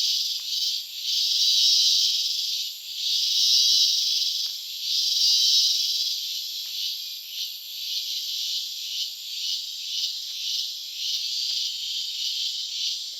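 Insects buzzing in a high-pitched chorus that swells and fades in long waves of about a second and a half, then breaks into shorter, quicker pulses in the second half.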